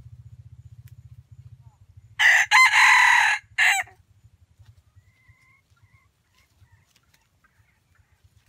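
Red junglefowl decoy rooster crowing once about two seconds in. The crow lasts a little over a second and is clipped off by a short final note after a brief break.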